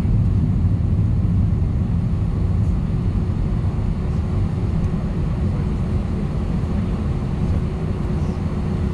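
Airbus A319 cabin noise during takeoff: the jet engines and rushing air make a steady low rumble, with a faint steady hum above it, easing slightly toward the end.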